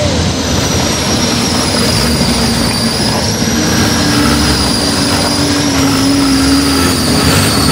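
Open-top 4x4 jeeps driving through a shallow rocky river: engine noise mixed with the splash and rush of water from the wheels, a loud, steady rush with a faint high whine over it.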